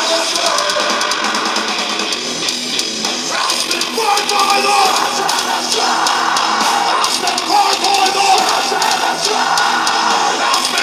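Live heavy-metal band playing loud, with distorted electric guitar, a drum kit with crashing cymbals, and a vocalist on the microphone over it.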